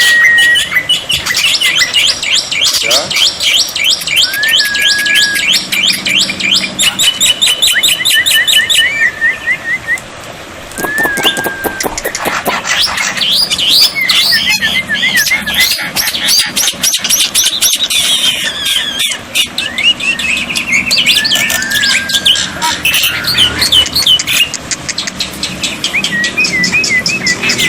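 Black-winged myna (jalak putih) calling loudly: fast, harsh chattering runs mixed with short rising whistled notes, repeated again and again.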